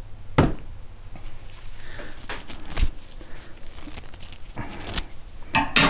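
Handling noise on a workbench: a cloth rag rustling and scattered light knocks of metal rifle parts, ending in a sharp metallic clink near the end.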